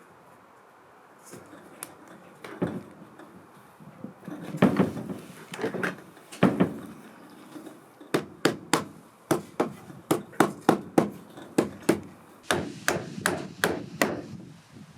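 Hammer driving a loose nail back into an old wooden door: a few scattered blows at first, then a steady run of quick strikes, about two or three a second, for several seconds near the end.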